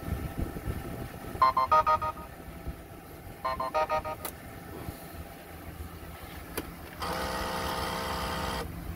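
Car wash pay kiosk's card terminal beeping: two quick runs of electronic beeps, then a longer steady tone about seven seconds in, as the card payment is approved and the card is to be removed. A van engine idles low underneath.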